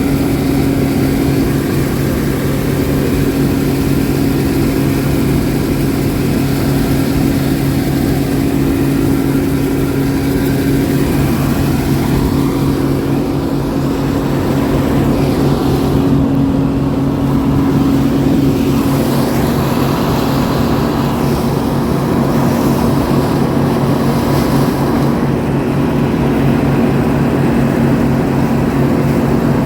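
Farm machinery engine running steadily under load during corn harvesting, its pitch dropping slightly about two-thirds of the way through.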